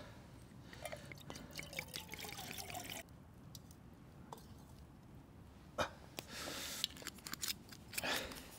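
Mulled wine being poured into a vessel, starting about a second in: a short pour whose pitch rises as the vessel fills, lasting about two seconds. A few light clicks and knocks follow.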